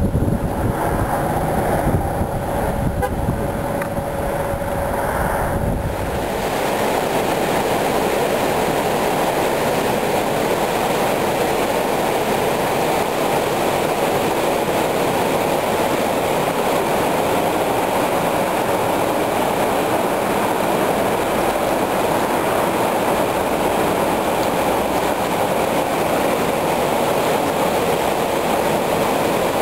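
Fast whitewater river rapids rushing steadily. For the first several seconds wind rumbles on the microphone before the river noise takes over.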